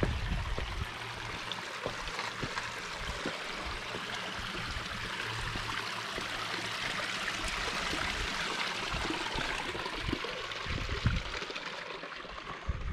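Shallow stream trickling and splashing over rocks, a steady rush that swells a little toward the middle, with a few low thumps near the start and end.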